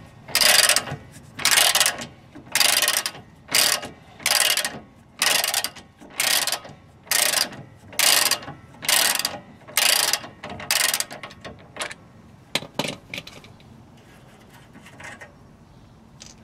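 Socket ratchet clicking in short rasping bursts, about one a second, as it winds the nut off the rear shock absorber's lower mounting bolt. The ratcheting stops about two-thirds of the way through, followed by a few faint clicks.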